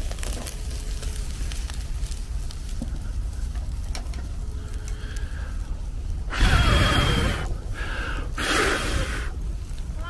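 Chicken grilling in a wire basket over a charcoal mangal, under a low steady rumble. Two loud, breathy rushes of noise come about six and a half and eight and a half seconds in, each lasting about a second.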